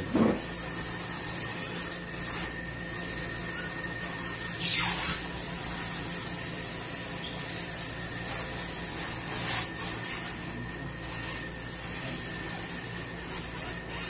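Large cardboard refrigerator carton being carried and handled, giving a few short scuffs and swishes, the loudest about five seconds in, over a steady background hum.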